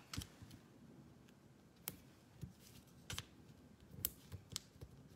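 Several faint, scattered clicks and taps of fingers handling small cardstock pieces and foam adhesive dimensionals.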